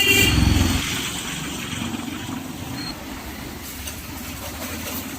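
Bajaj Pulsar NS motorcycle engine running steadily while riding, loudest in the first second. A vehicle horn's honk cuts off right at the start.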